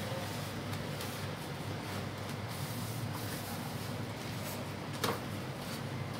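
Banana leaf rustling and rubbing against an aluminium tray as hands fold and smooth it into a cone, over a steady low hum, with one sharp click about five seconds in.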